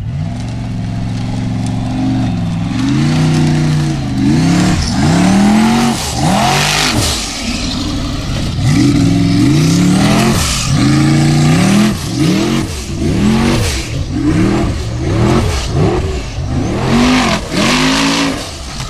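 Formula Offroad buggy's engine revving hard, its pitch climbing and dropping over and over as the throttle is worked on a steep dirt climb, faster in the second half. Gritty hiss from the paddle tyres spinning and throwing loose dirt rises with each rev.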